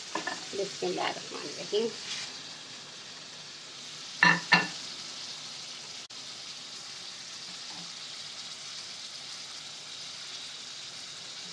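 Steady sizzle of chopped tomatoes frying in oil in a karahi. Two short, loud, sharp sounds come about four seconds in.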